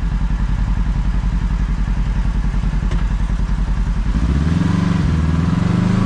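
Side-by-side UTV engine running at low trail speed with an even low pulsing, revving up about four seconds in.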